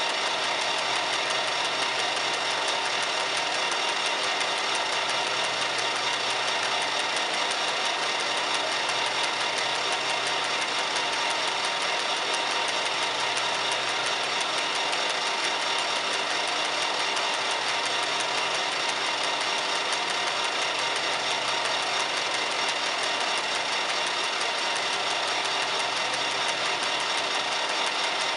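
Metal-turning lathe running steadily with a connecting rod bolted off-centre on its faceplate, the tool taking a facing cut across the side flange of the rod's white-metal big-end bearing. The sound is an even machine hum with several fixed tones that does not change.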